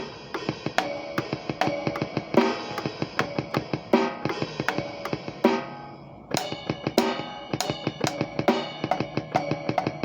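Drum kit played freely: fast, irregular hits on the drums and cymbals. The playing lets up briefly a little past halfway, then comes back in with a cymbal crash.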